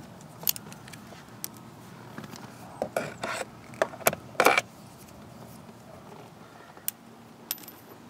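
A screwdriver working door-panel screws: a scattering of small, sharp metallic clicks and taps. There is a cluster of clicks about three seconds in, and the loudest click comes about four and a half seconds in.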